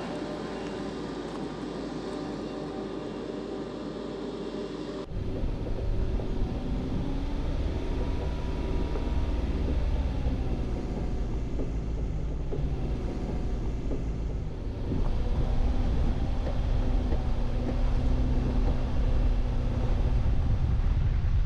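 Mercedes-Benz G-Class off-roader's engine pulling slowly up steep ramps: a steady hum, then about five seconds in a sudden switch to a heavier, louder low rumble heard from on board, with a slow rising and falling whine, getting louder again about two-thirds of the way through.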